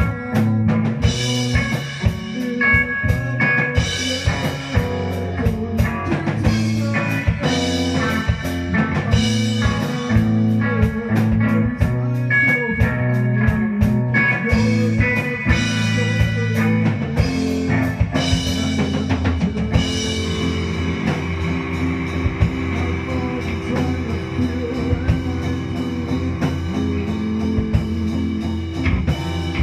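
Live rock band playing: drum kit and electric guitars. About two-thirds of the way in the drum hits thin out and the guitars hold a sustained chord.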